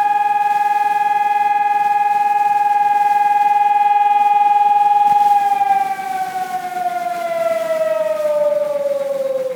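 Seismic alert siren sounding for an earthquake drill, holding one steady tone, then sliding down in pitch as it winds down a little past halfway through.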